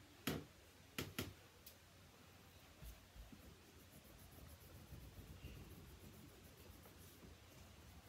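Wax crayon rubbing on a pumpkin's skin, a faint scratchy scribble, with three sharp knocks in the first second and a half.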